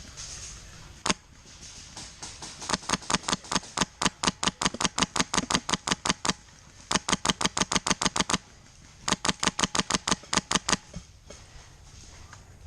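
Airsoft gun firing: a single shot, then three long strings of rapid shots with short breaks between them.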